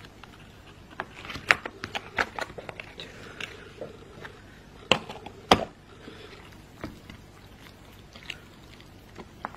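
Chopsticks working noodles in paper cup-noodle cups and fingers handling a plastic food package: scattered sharp clicks and crackles. A cluster of them comes early, and the two loudest snaps come about five seconds in.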